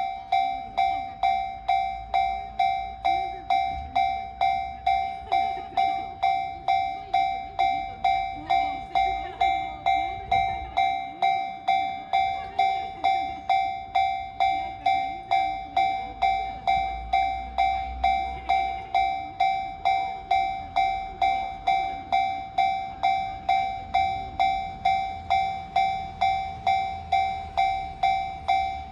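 Japanese railway level crossing's electronic warning bell ringing steadily, about two strikes a second, signalling that a train is approaching or passing. A low rumble swells and fades beneath it.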